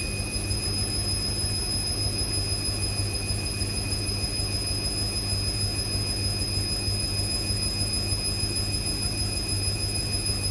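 Indesit IWC6165 washing machine running steadily mid-programme: a constant low hum with a thin high whine over it, unchanging throughout.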